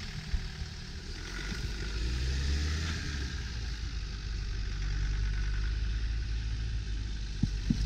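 Land Rover Defender pickup's engine pulling steadily as the truck crawls through deep snow. A low rumble with a steady hiss over it, growing a little louder about one and a half seconds in.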